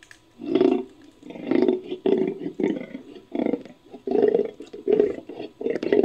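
Cave lion sound effect assembled from big-cat recordings: a run of short, low roaring calls, about one every half second to second, beginning about half a second in.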